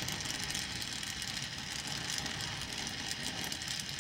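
Oxy-fuel gas welding torch flame hissing steadily while it melts the metal along a crack in a muffler.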